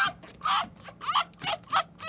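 Small animal giving a fast series of short, high calls, each rising and then falling in pitch, about three a second.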